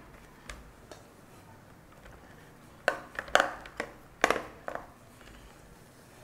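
Hands pressing raw kibbeh mixture of meat and bulgur wheat into an aluminium baking pan, with a few sharp knocks and taps against the pan clustered about three to five seconds in.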